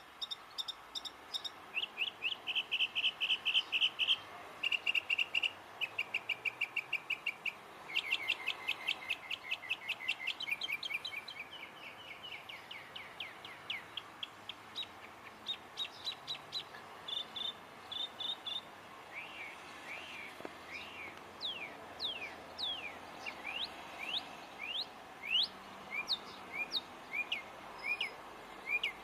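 A songbird singing a long, varied song: each phrase is repeated several times before it switches to a new one, moving from fast trills and rapid runs of notes to steep whistled sweeps in the second half.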